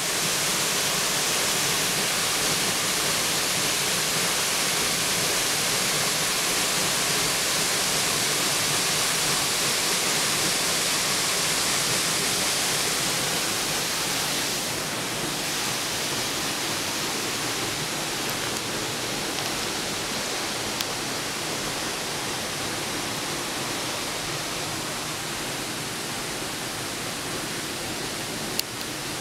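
Sir John Falls, a waterfall pouring into a pool, rushing steadily. The rush eases a little about halfway through.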